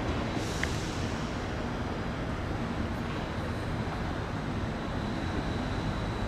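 JR East E926 East-i Shinkansen inspection train pulling away along the station tracks, a steady low rumble of its running.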